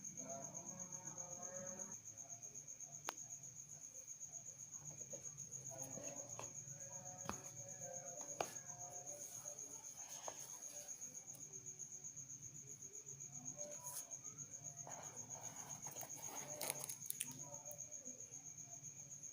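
Crickets trilling steadily in a high, fast-pulsing drone, with faint voices in the background and a few sharp clicks.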